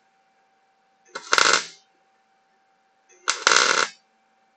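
Electric arc welding in short tack welds on thin wire mesh and a steel frame: two bursts of about half a second each, the first a little over a second in and the second about three seconds in.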